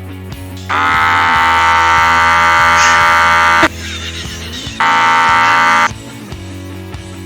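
Air horn blasting twice: a long, loud, steady blast of about three seconds, then a shorter one of about a second. Rock background music plays under it.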